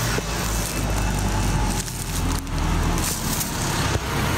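Street noise: a steady low rumble with a wide hiss above it, and a few short scuffing noises.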